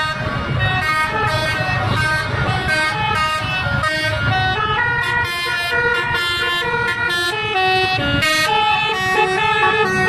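Bus telolet horn, a set of multi-tone air horns playing a quick melody of stepping notes, over the low rumble of traffic.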